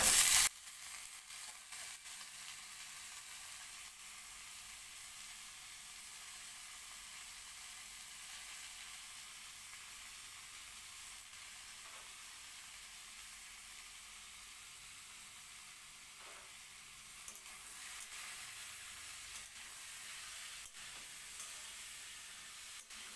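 Sliced potato and pointed gourd tipped into hot oil in a steel wok: a loud burst of sizzling as they land, then a steady frying hiss. A spatula stirs the pan with occasional clinks, more of them near the end.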